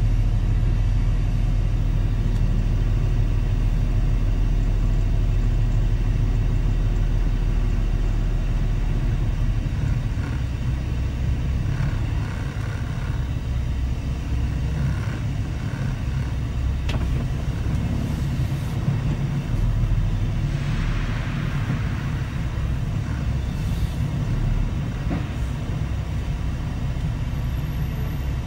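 Semi truck's diesel engine running at low speed, heard from inside the cab as a steady low rumble that eases off about a third of the way through. A short hiss comes about two-thirds in.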